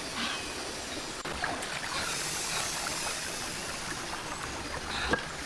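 Steady rush of a rocky river stream, with a few faint knocks.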